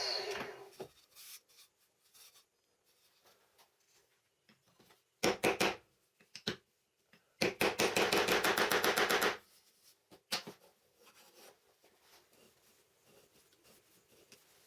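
A power tool spinning down at the start, then a few short bursts of quick repeated strokes from hand work on a part. The longest burst, a rapid run of strokes, lasts about two seconds.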